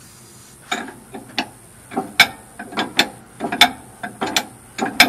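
Repeated metallic ratcheting clicks, a short burst of clicks roughly every two-thirds of a second, starting just under a second in, as a stuck engine is worked round backwards by hand.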